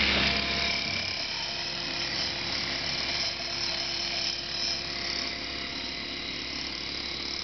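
Mini excavator's diesel engine running under load with a steady high hydraulic whine as the boom swings toward the dump truck.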